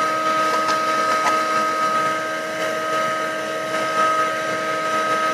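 Portable 12-volt car vacuum cleaner running, its small motor giving a steady whine over the rush of air.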